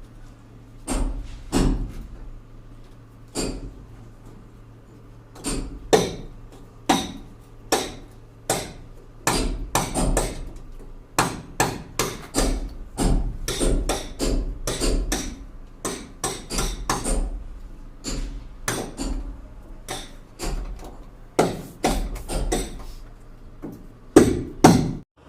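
A hammer striking repeatedly in an uneven rhythm, about one to two sharp blows a second, each with a short ring; the two loudest blows come near the end.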